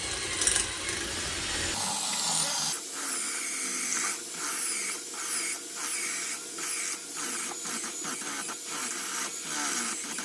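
Electric drill running as it bores a hole into the wall. The motor sound dips briefly many times as the bit works through.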